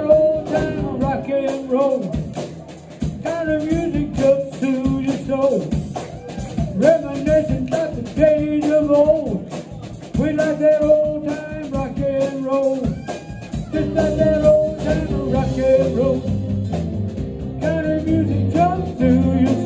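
Live rock-and-roll music: a man singing into a microphone over electric bass and band accompaniment.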